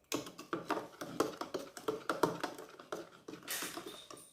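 Instant yeast being stirred into milk in a bowl: a utensil clicking quickly and unevenly against the sides, with a brief hiss about three and a half seconds in.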